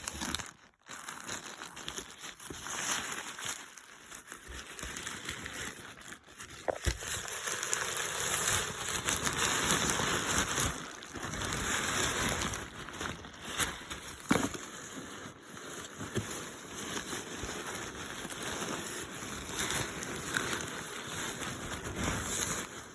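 Packaging being handled and unwrapped: irregular crinkling and rustling, with a few sharp knocks.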